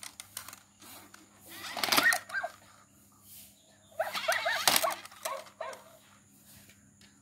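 Toy robot dog playing electronic dog barks and yips from its speaker in two short bursts, about two seconds in and again about four seconds in, as it answers a pat on its head.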